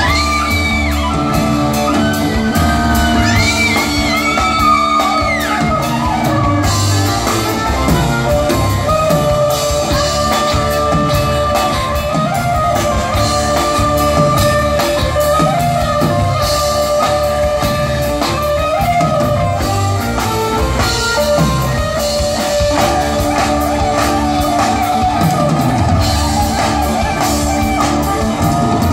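Live band music played on stage: a song with double bass, drums and keyboard, a melody line gliding above sustained notes.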